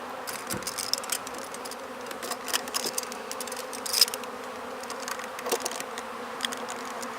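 Honey bees buzzing steadily at an open hive, with scattered clicks and scrapes of wooden frames being worked apart, the sharpest about four seconds in.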